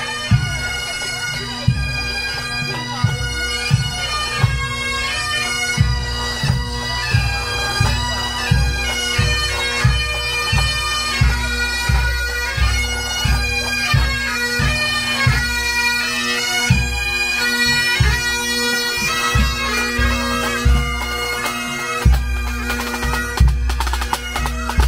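Pipe band playing Highland bagpipes: a steady drone under the chanter melody, with regular drum beats, the drums growing louder near the end as the snare drummers come close.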